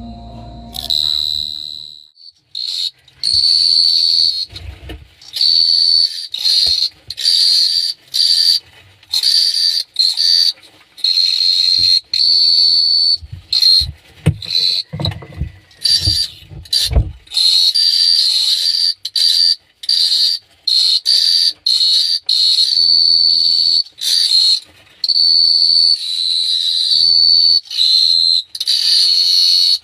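A cricket chirping: a high, steady trill that starts and stops again and again, in stretches of about half a second to two seconds with short gaps between. A few low thumps come about halfway through.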